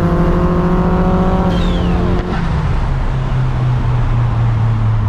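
Car engine running hard with its pitch slowly falling, then coming off the throttle a little over two seconds in, the note dropping in steps to a lower steady drone as the car slows after a roll race. A brief falling whistle sounds just before the lift-off.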